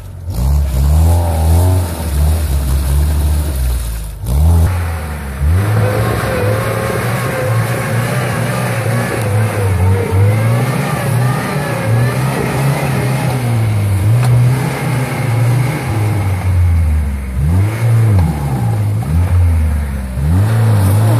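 Lada Niva's four-cylinder engine revving up and down repeatedly under heavy load as the 4x4 churns through deep mud.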